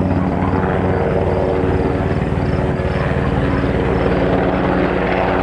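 Sikorsky CH-148 Cyclone helicopter flying close by, its rotor beating in fast, even pulses over a steady engine tone.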